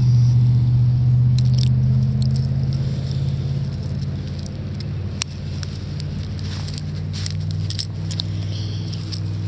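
An engine running steadily with a low hum, its pitch rising slightly at the start and easing down a little about halfway through, with light scattered clicks over it.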